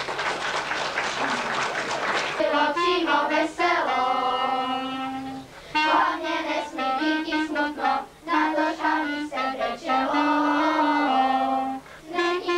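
Children singing a song together, in phrases with long held notes and short breaks between them; the singing starts about two seconds in, after a stretch of dense noise.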